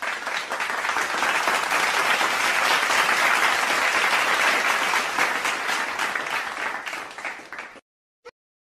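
Crowd applauding: many hands clapping, swelling to a peak a few seconds in and then fading out shortly before the end, followed by a single brief click.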